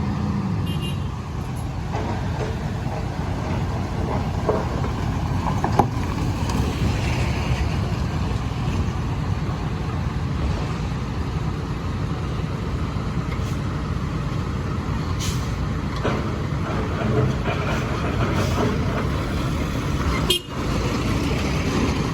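Excavator's diesel engine running steadily as the machine is driven down off a lowboy truck trailer, with a few short knocks from the machine.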